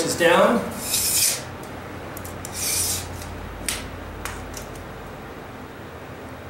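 Two short scraping rubs about two seconds apart, followed by a few light clicks and taps, from hand work with tools and materials.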